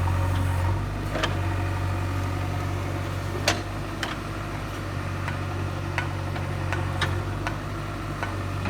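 JCB 3DX backhoe loader's diesel engine running steadily, with several sharp knocks over it, the loudest about three and a half seconds in.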